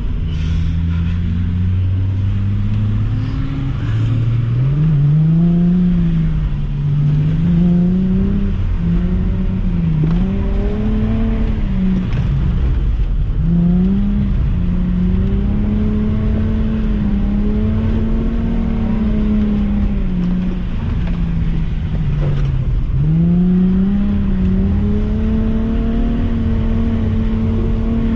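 Nissan V35 Skyline 350GT's 3.5-litre V6 heard from inside the cabin while the car is being drifted. It runs low for the first few seconds, then climbs about four seconds in, and the revs keep rising and falling, held high for stretches with several quick dips.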